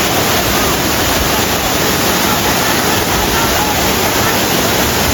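Large waterfall close by: loud, steady rushing of falling water.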